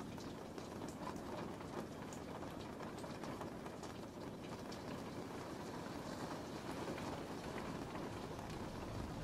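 Steady rain: an even hiss with faint drop ticks scattered through it.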